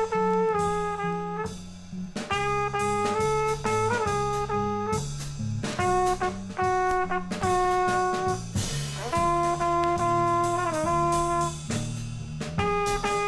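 Small jazz group playing: a trumpet carries a melody of held notes with short breaks and a brief bend in pitch near the end, over a walking double-bass line and drum kit with cymbal strokes.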